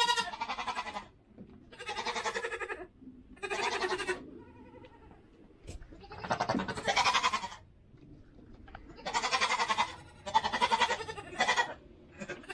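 Goats bleating, about seven long, wavering bleats one after another with short gaps between them. They are newly arrived young goats, just separated from each other, calling after each other.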